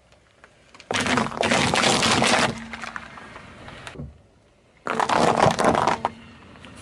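Car tyre rolling over a row of paper cups and crushing them: a loud crunch starts about a second in and dies away over the next two seconds. About five seconds in comes a second loud crunch as the tyre crushes a pile of small hard white cubes.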